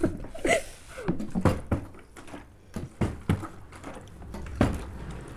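Partly filled plastic water bottle being flipped and landing on the tabletop: an irregular series of short knocks and thuds, with brief laughter near the start.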